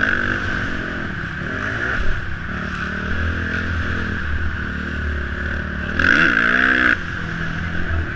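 Motocross dirt bike engine running hard under load, heard from the rider's helmet-mounted camera, its pitch rising and falling as the throttle is worked. The loudest surge, with a quick swoop of revs, comes about six seconds in.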